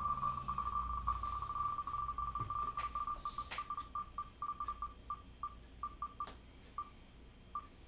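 Wheel of Names online spinner's tick sound effect: rapid short electronic ticks that blur together at first, then slow steadily as the wheel decelerates, until only a few widely spaced ticks remain near the end.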